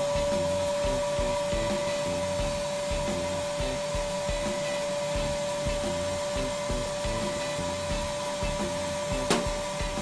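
Vacuum motor of a vacuum-forming table running steadily with a whine, pulling heat-softened plastic sheet down over the parts on the platen. A single sharp click about nine seconds in.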